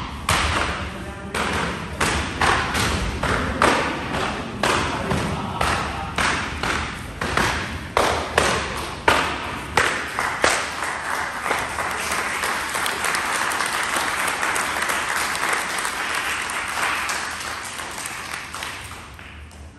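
Jiu-jitsu belts lashing a newly promoted student as he runs the belt gauntlet: sharp, irregular cracks about twice a second for roughly the first ten seconds. Then steady applause that fades near the end.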